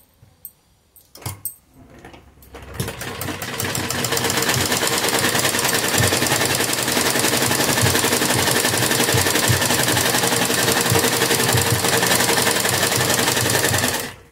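Sewing machine stitching lace onto fabric: a few light clicks at first, then it picks up speed about three seconds in and runs fast and steady before stopping abruptly near the end.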